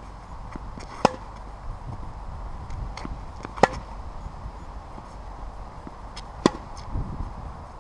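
Tennis racket striking the ball on forehand drives: three sharp pops a couple of seconds apart, with fainter knocks in between.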